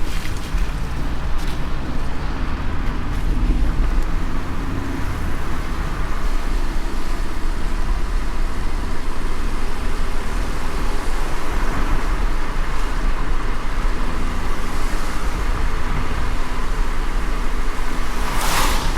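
Car driving on a wet road in the rain: a steady low rumble from engine and road with a constant hiss of tyres on water and rain. Near the end there is a brief, louder whoosh.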